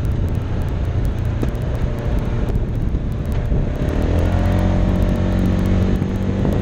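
Side-by-side UTV engine running while driving, with wind buffeting the microphone; about four seconds in the engine revs up and then holds a steady pitch.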